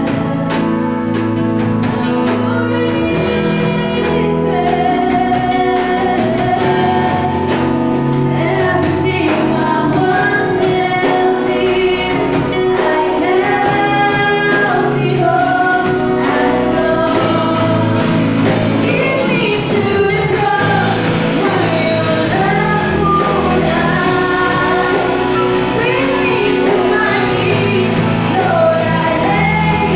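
Two women singing a worship song into microphones, backed by a live band of drum kit, keyboard and electric guitar.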